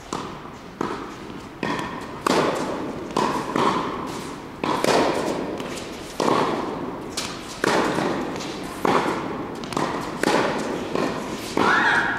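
Tennis ball repeatedly struck by rackets and bouncing on a hard court during a backhand rally, sharp pops about once a second, each ringing on in the echo of a large indoor tennis hall.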